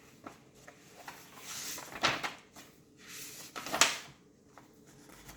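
Rustling and a few knocks as a picture book is handled and its pages are turned.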